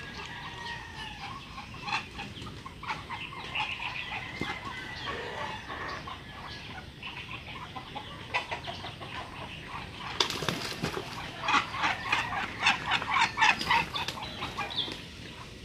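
Scattered short calls of backyard fowl, then a burst of wing flapping from Muscovy ducks about ten seconds in, lasting several seconds, with more calls mixed in.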